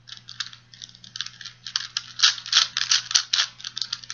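4x4x4 Rubik's cube being turned rapidly by hand: fast irregular plastic clicking and clacking of the layers and pieces as they rotate.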